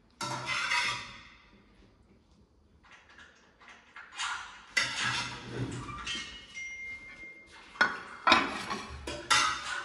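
Metal serving spoon scraping and clinking against ceramic dinner plates in irregular bursts of clatter, with a brief high ringing tone a little after halfway.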